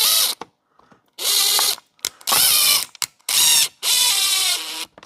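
Cordless power driver running in several short bursts as it drives screws into a chainsaw handle, its motor pitch shifting within each burst.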